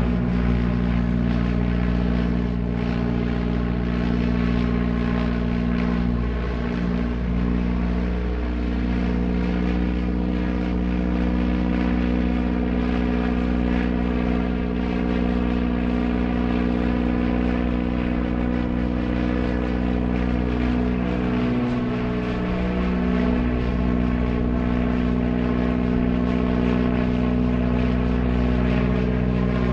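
Propeller airplane engine running at a high steady power setting, a constant drone with faintly beating tones.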